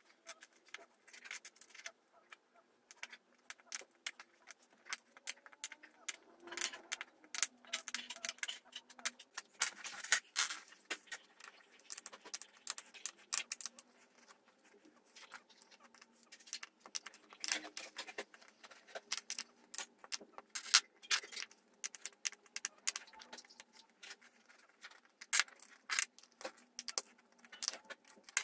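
Screws being driven by hand with a screwdriver into an MDF desktop: irregular metallic clicks and light rattles as the screwdriver turns and the screws and fittings are handled.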